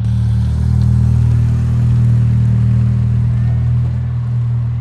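Mitsubishi Lancer sedan's four-cylinder engine and exhaust as the car drives past, a loud, steady low drone at even revs.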